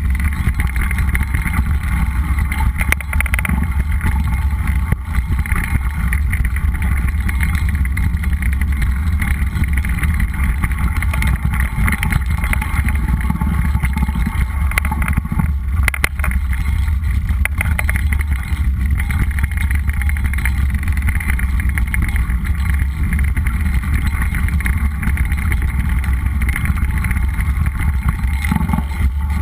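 A mountain bike riding over a dry dirt trail: a steady rumble of wind on the microphone and tyres on dirt, with many small clicks and rattles from the bike over the rough ground.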